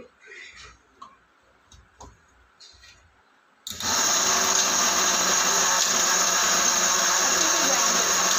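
Electric spice grinder switched on about a third of the way in and running steadily, grinding dry-roasted whole spices and bay leaf pieces to powder. Before it starts, a few light knocks as the jar and lid are handled.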